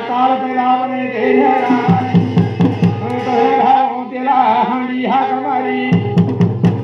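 A male singer chanting a Garhwali jagar devotional song. A hand-played dhol drum joins in two runs of quick, even strokes, about two seconds in and again near the end.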